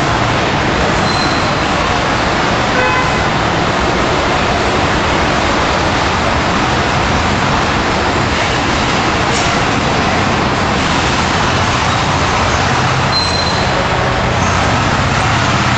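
Sweet corn thresher machine running steadily: a loud, even mechanical noise with a low hum underneath.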